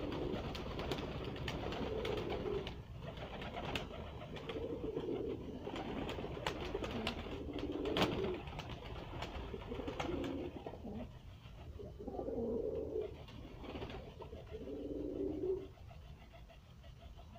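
Domestic pigeons cooing in repeated low bouts every second or two, with a sharp wing flap about eight seconds in; the cooing stops shortly before the end.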